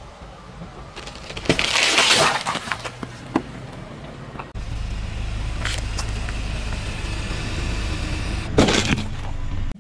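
A car tyre rolling onto a whole watermelon, which splits and bursts under the weight about a second and a half in, followed by a few smaller cracks. After a cut, a car engine runs with a steady low rumble, and a sudden loud crunch comes near the end.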